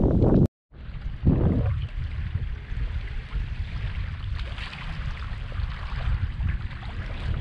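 Wind rumbling on the microphone over water sloshing around a small inflatable boat. The sound cuts out briefly about half a second in, then returns quieter.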